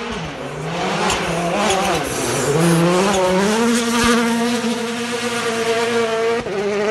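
Hyundai i20 Coupe WRC rally car's turbocharged four-cylinder engine at full effort as the car comes past. The revs dip and waver through the corner, then climb about halfway through and hold high until a sudden drop near the end.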